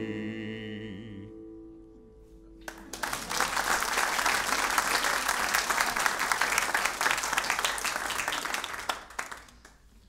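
A held final sung note and a last chord on a nylon-string classical guitar ring out and fade over the first two to three seconds. Then the audience applauds for about six seconds, and the applause dies away near the end.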